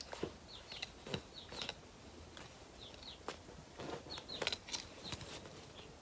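Pet chicks peeping: short, high chirps that fall slightly in pitch, coming in small clusters of two or three, with a few soft clicks in between.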